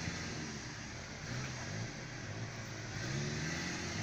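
Off-road 4x4's engine running at low revs under light throttle, its pitch rising about three seconds in as the driver gives it more gas.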